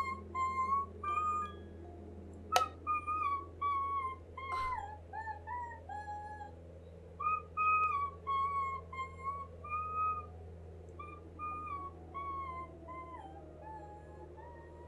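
An animated creature's calls: a string of short, whistle-like chirping notes that glide up and down. Two sharp clicks come about two and a half and four and a half seconds in, and a low steady hum runs underneath.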